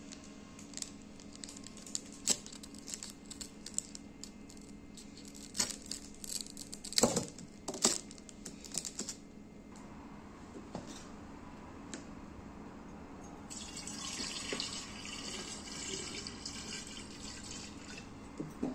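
Scissors cutting a green lucky bamboo stalk on crinkly aluminium foil: a run of sharp clicks and crackles, with two louder snaps about seven and eight seconds in. A steady hiss follows for a few seconds near the end.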